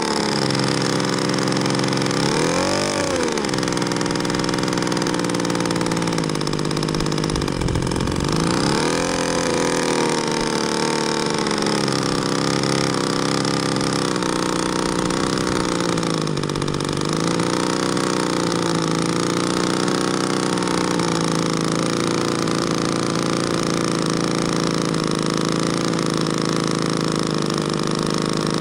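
Rear pusher engine of a giant-scale radio-control Dornier Do 335 model, a two-stroke petrol engine, running on the ground at a steady idle, with throttle blips that rise and fall in pitch about 3, 8 and 16 seconds in.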